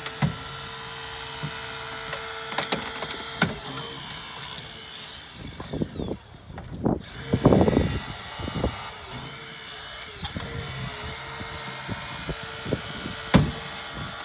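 Hydraulic rescue tool (jaws of life) forcing a car door: a steady hum from the tool's power unit under irregular sharp cracks and snaps of metal and plastic giving way. The loudest burst of crackling comes about seven to eight seconds in.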